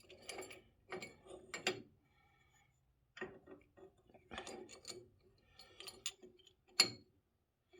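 A metal plate and small parts being handled and repositioned while test-fitting: irregular clicks, clinks and light knocks, with one sharper knock near the end.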